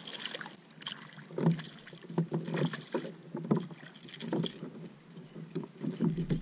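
A small hooked fish splashing at the surface beside a plastic kayak, then a run of irregular knocks and thumps on the kayak as it is reeled in and landed.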